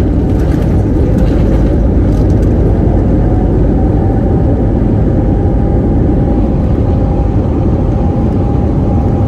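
Steady heavy rumble inside the cabin of an Airbus A321neo airliner around its landing, with a faint steady tone joining about three and a half seconds in.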